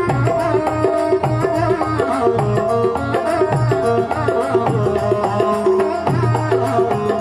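Instrumental Rajasthani devotional folk music: a dholak drum keeps a steady, driving rhythm under a sustained keyboard melody.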